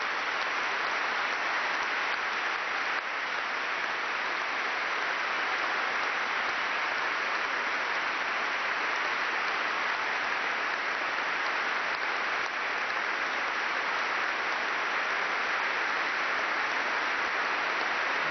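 Sustained applause from a large congregation, a dense, steady clapping that neither builds nor fades.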